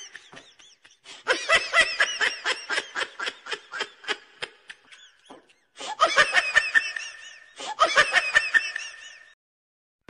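Laughter sound effect: a long run of quick, high-pitched ha-ha pulses that fades out, then two shorter bursts of laughter, each about a second and a half long.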